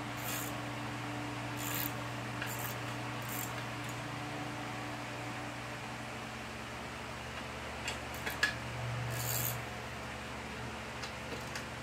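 Steady low mechanical hum, like a running fan, with scattered light clicks and a few brief hisses from parts being handled during reassembly of a lawn mower.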